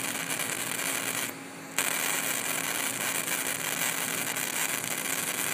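High-voltage arc from a flyback transformer at about 20 kV, burning as a flame-like plasma between a wire tip and a neodymium magnet: a steady hiss with a low hum underneath. The arc drops out for a moment about a second and a half in, then strikes again suddenly.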